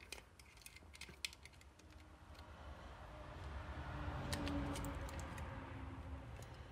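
Light plastic clicks and rattles from handling a disassembled Logitech G203 mouse as its circuit board is worked loose from the shell, giving way about halfway through to a softer, longer rubbing of plastic and board.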